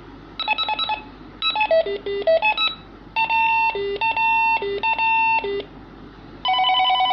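Baofeng walkie-talkie playing its call tones one after another as its call-tone menu is scrolled: four short electronic beep melodies, the third with longer notes alternating high and low, the last a fast warble between two close notes near the end.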